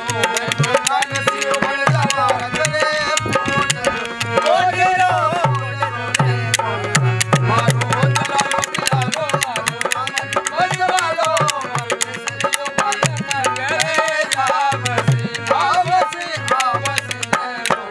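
Rajasthani folk music: a dholak drum beating a steady rhythm under a harmonium melody, with sharp clicks from khartal wooden clappers.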